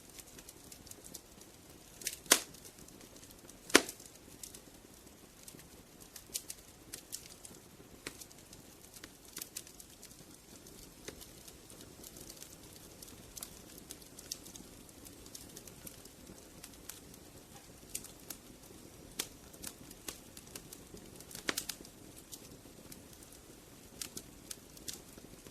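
Burning firewood crackling: a soft steady hiss of flames with irregular sharp snaps and pops, two loud pops a second and a half apart a couple of seconds in and another loud one about three-quarters of the way through.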